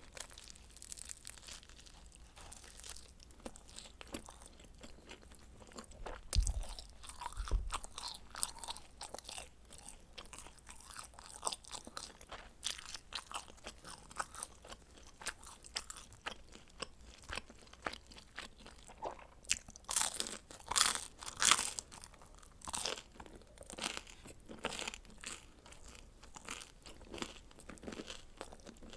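Close-miked chewing and crunching of pizza, with irregular crisp crunches throughout and the loudest bunch about twenty seconds in. Two dull thumps come about six and seven seconds in.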